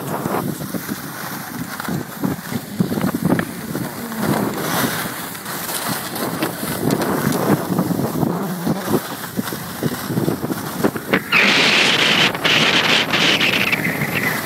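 Wind buffeting the microphone of a camera carried by a skier moving downhill, with the hiss and scrape of skis on snow; the hiss turns louder and brighter about eleven seconds in.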